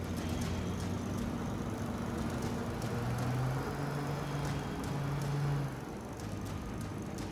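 Homemade pontoon hovercraft running on its engines, the fans pushing a steady rush of air. The engine note gets louder about three seconds in and eases back near the end.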